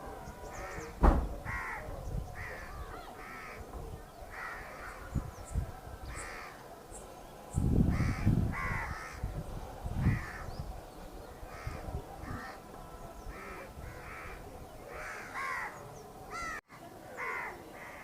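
Several crows cawing repeatedly in short harsh calls, one after another throughout. A sharp low knock comes about a second in, and a louder low rumble a little before the middle.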